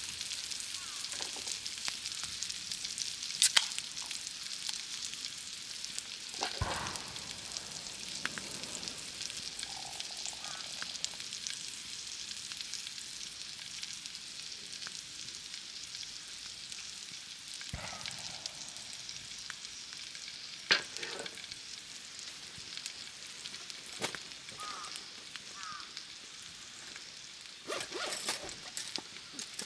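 Food frying in a pan with a steady crackling sizzle, broken by a few sharp clicks and knocks.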